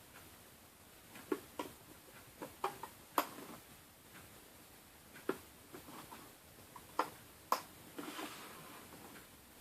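Rubber bands being stretched and snapped onto the plastic pins of a Wonder Loom, with a dozen or so small, irregular clicks and snaps. The loudest come about three seconds in and again near the end, followed by a short rustle.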